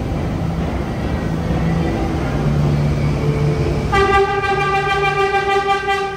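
Vintage Redbird subway train approaching with a steady rumble and low hum, then about four seconds in it sounds its horn: one steady, bright blast of about two seconds.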